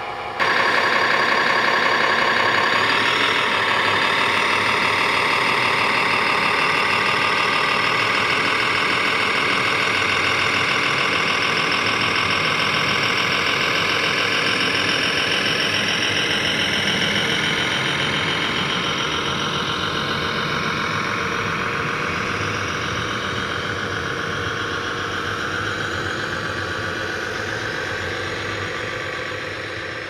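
Radio-controlled model Komatsu HD405 dump truck running with a steady, engine-like drone. The drone jumps louder about half a second in and then slowly fades.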